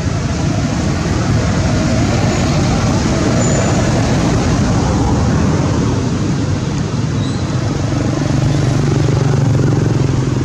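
Steady running of a motor vehicle engine, its low hum swelling a little near the end.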